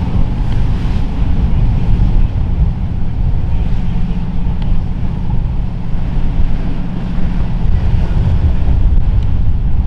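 Wind buffeting the microphone over the low drone of a large sportfishing boat's engines and the wash of waves as it runs past.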